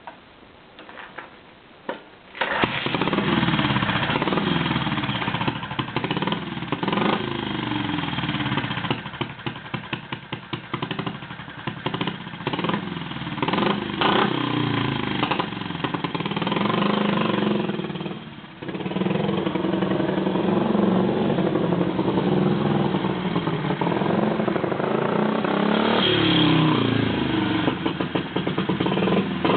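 Simson AWO 425T motorcycle's single-cylinder four-stroke engine starting after a couple of brief sputters about two seconds in, then running and being revved, its pitch rising and falling. It drops back briefly near the middle and rises again near the end.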